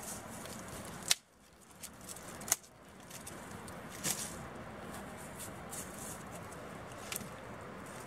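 Small fire of dry twigs catching and crackling, with scattered sharp snaps over a steady background hiss. Two louder sharp clicks come about one and two and a half seconds in.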